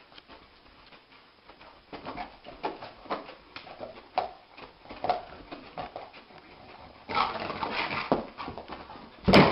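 A dog whimpering in its sleep, a run of short soft yips about two a second. Near the end a louder scuffling noise joins in, and a sudden loud burst closes it.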